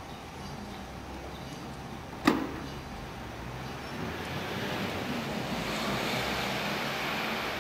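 Eurocopter EC135 rescue helicopter's twin turbines and slowly turning main rotor running on the pad, a steady rushing noise that grows louder from about four seconds in. A single sharp click about two seconds in.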